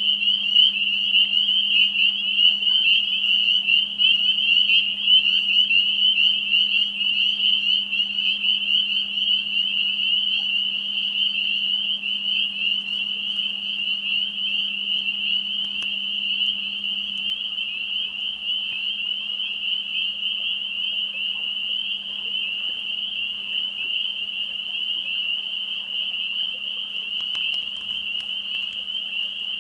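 A dense chorus of spring peepers, many high, short peeping calls overlapping into one continuous shrill trill, with a faint steady low hum underneath.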